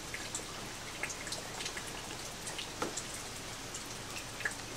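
Light rain: scattered water drops landing at irregular intervals over a steady hiss.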